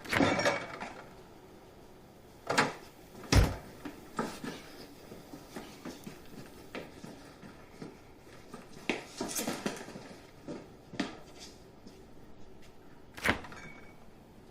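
Scattered knocks and clicks of objects being handled, with a heavy thump a little over three seconds in and a quick cluster of clacks about nine seconds in.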